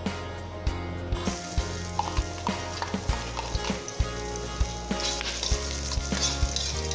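Minced garlic sizzling in hot cooking oil in a wok, the hiss starting about a second in as the garlic hits the oil, with a spatula stirring it near the end.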